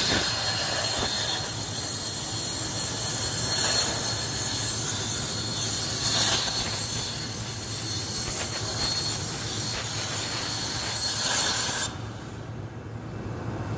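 260-amp Hypertherm plasma torch on a CNC table cutting steel plate: the arc and gas give a steady hiss, which cuts off suddenly about twelve seconds in as the cut ends.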